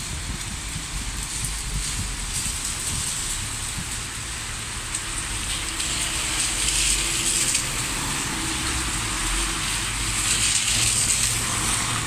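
Cars driving along a rain-soaked street, their tyres hissing through the water over a low engine hum, with rain falling on the wet road. The hiss swells about halfway through and again near the end as cars pass close by.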